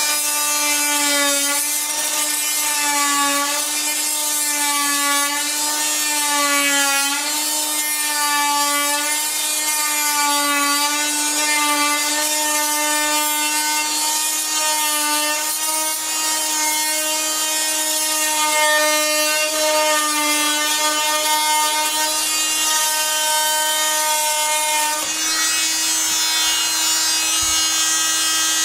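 Porter-Cable 3-amp oscillating multi-tool with a wood blade, running at its fast setting, 6, and cutting into wood. It gives a steady high-pitched hum that sags in pitch every couple of seconds for the first several seconds as the blade loads in the cut. The tone shifts slightly about 25 seconds in.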